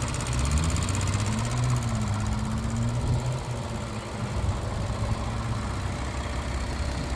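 A 2015 Lexus RC350's 3.5-litre V6 idling steadily, heard from over the open engine bay, with a light, fast clicking from its fuel injectors: the normal ticking of the injectors.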